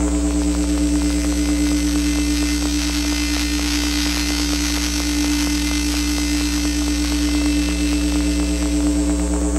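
Drone synthesizer run through Kaoss Pad effects, holding a steady buzzing drone. A strong, unchanging tone sits over a low hum, layered with hiss and fine crackling glitch texture.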